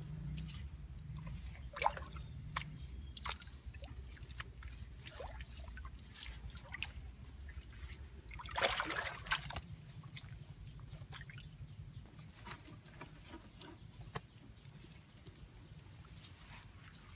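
Hands scooping wet mud and muddy water in a small dug hole: scattered wet clicks, drips and small splashes, with one louder splash about nine seconds in.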